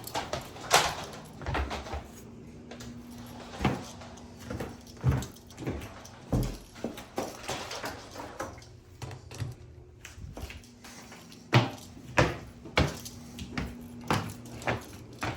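Oreck vacuum cleaner picking up crunchy debris: irregular sharp clicks and knocks, a few each second, over a faint steady motor hum.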